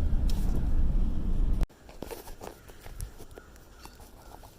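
Car driving: steady low road rumble heard from inside the cabin, cut off suddenly about a second and a half in. Quiet outdoor sound follows, with faint scattered ticks.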